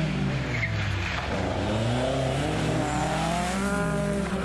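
Ford Escort Mk2 rally car's engine revving hard. The pitch dips in the first second, then climbs again over the last couple of seconds as the car accelerates.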